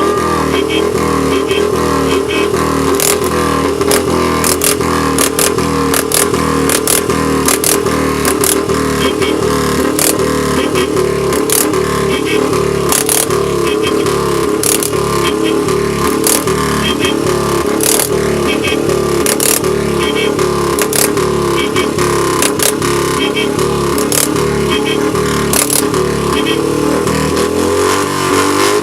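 Motorcycle engine running loudly with a fast, pulsing exhaust beat and blips of throttle.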